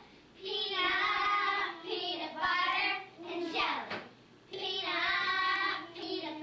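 Young girls singing a song together in three phrases with long held notes.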